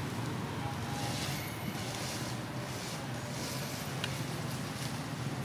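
Steady low outdoor background rumble with faint insect buzzing at intervals; no clear animal calls.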